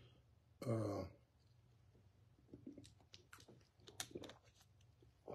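A man drinking from a plastic water bottle: a short throaty swallowing sound about half a second in, then faint clicks and crinkles of the thin plastic bottle as its cap is twisted back on.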